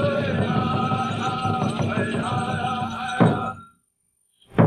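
Men of a drum group singing a Menominee pipe dance song in high, wavering voices over a fast, steady beat on a large drum. About three seconds in the song ends on a hard drum stroke and fades to silence. Near the end a new song begins with another loud stroke.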